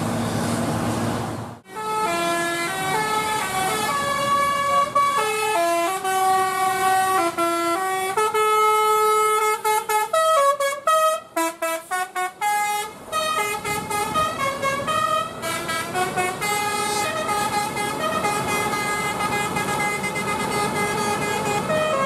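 A tour bus's basuri horn playing a tune: a string of held and short notes stepping up and down in pitch, with a run of quick staccato notes about halfway through. It begins right after a sudden cut from a second and a half of engine and road noise.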